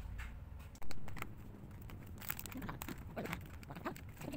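Packaging being handled and unwrapped: crinkling and rustling with scattered small clicks, and one sharp, loud rustle or knock about a second in.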